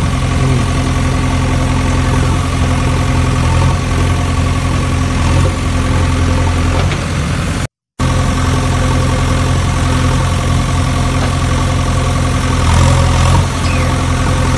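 Steady diesel engine idling sound, even and unchanging, cutting out for a split second about eight seconds in.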